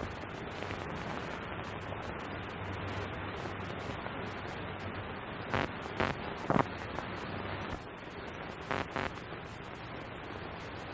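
Steady hiss of an old 1930s optical film soundtrack, with a few short soft knocks: three about five to seven seconds in and two more close together around nine seconds.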